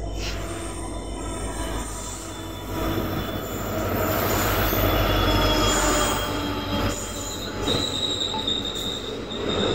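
WDP4B diesel-electric locomotive running through at speed with a passenger train. Its two-stroke EMD diesel engine drones low and swells louder about three seconds in as it passes close by. Then the coaches roll past, with a high steady wheel squeal near the end.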